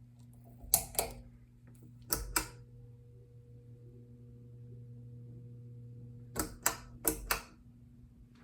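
A Home Decorators Collection Windward ceiling fan's motor hums steadily, broken by sharp clicks in pairs: two near the start, two a little later, then a quick run of four near the end. A faint higher tone joins the hum after the second pair of clicks and drops out when the last clicks come.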